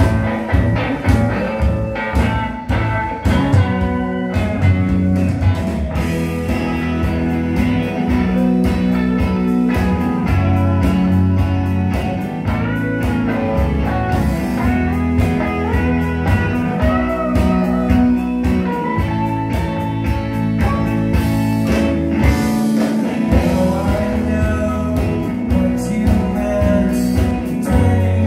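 Live rock band playing: electric guitars, electric bass and drum kit, heard from within the audience.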